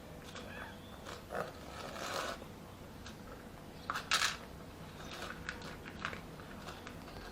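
Cat eating, with irregular small crunching clicks and two louder noisy bursts about two and four seconds in.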